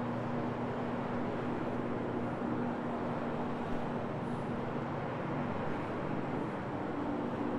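Rotary floor machine running steadily with a pad scrubbing a level-loop carpet, a steady motor hum over an even whir.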